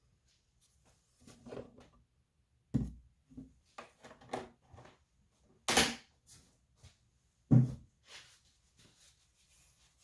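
Scattered knocks and clunks of objects being handled and set down, about a dozen in all, with a loud sharp knock just before six seconds in and a heavy thud about a second and a half later.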